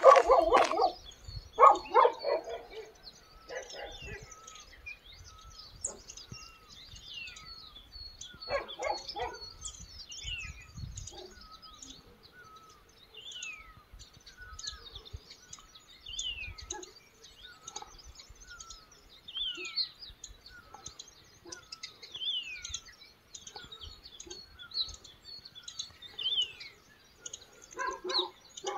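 Wild birds calling from the wooded hillside: many short chirps, with one bird giving a falling whistle about every three seconds. A dog barks several times in the first few seconds and again about nine seconds in.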